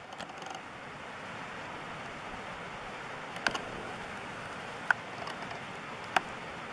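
Steady rushing outdoor background noise, with three sharp clicks in the second half.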